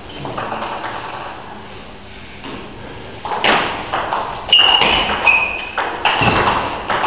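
Table tennis ball bouncing and being hit: sharp clicks, each with a short high ping, coming in quick succession from about four and a half seconds in, after a few dull thuds.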